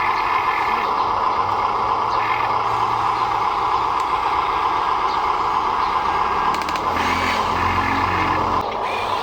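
Radio-controlled construction vehicle's small electric motors and gearing whirring steadily. A lower hum joins for a couple of seconds near the end.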